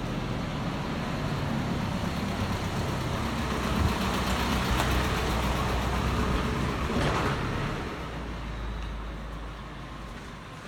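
A motor vehicle passing by: engine and road noise that swells to its loudest about halfway through, then fades away.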